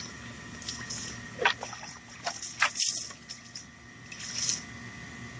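Water sloshing in a plastic bowl and splashing in a few short pours onto a gutted groundhog carcass on a wooden cutting board, rinsing it off.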